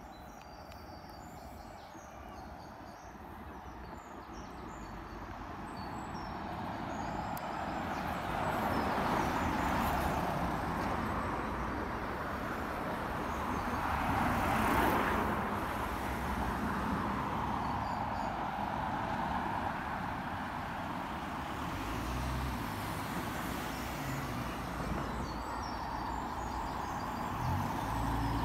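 Cars passing on a road, the tyre and engine noise swelling and fading as each goes by. The loudest pass comes about halfway through, with traffic noise steady after it.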